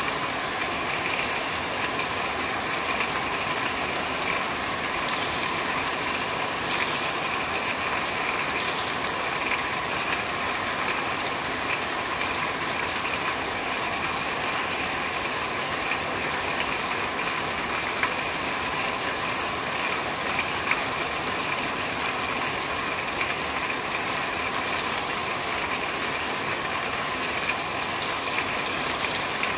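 Steady rain falling on a corrugated roof: a dense, even patter of drops on the sheeting.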